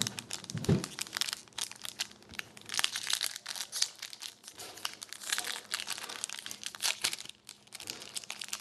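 A hockey trading card pack's wrapper crinkling and crackling as it is handled and torn open, with a single thump a little under a second in.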